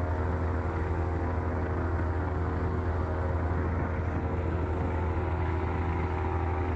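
A passenger ferry's engine running with a steady low hum, over the rushing water of the boat's wake.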